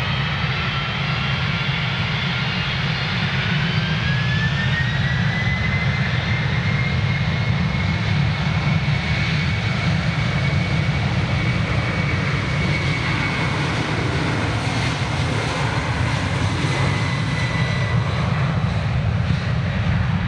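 Turbofan engines of a jet airliner spooling up to takeoff thrust. A whine rises in pitch over the first few seconds, then holds steady over a deep, loud rumble, and fades near the end.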